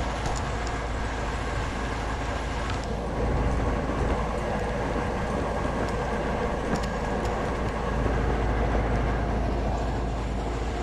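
A small engine running steadily, with no cutting strokes, under a low constant rumble.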